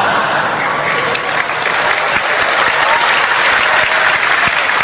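Audience applauding steadily, a dense continuous clapping.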